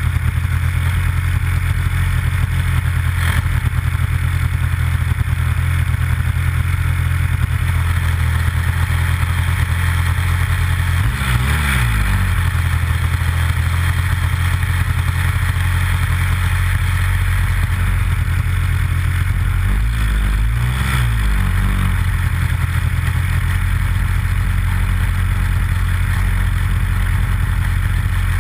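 Nitro glow engine of a Big Stik 60 RC airplane running close to the onboard camera while the plane taxis. The engine note is steady, and its pitch wavers briefly twice, about eleven seconds in and again about twenty seconds in.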